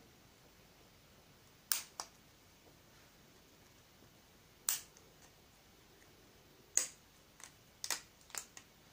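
Small plastic model-kit parts being snapped and cut off a plastic sprue: sharp, short plastic clicks, a pair about two seconds in, one near the middle, then several in quicker succession near the end.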